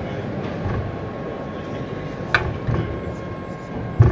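Electric drive of an automatic double swing gate and rising bollard in motion, with a steady thin whine. A sharp click comes about two and a half seconds in, and a heavy thump near the end as the gate leaves shut. Background voices of a busy exhibition hall.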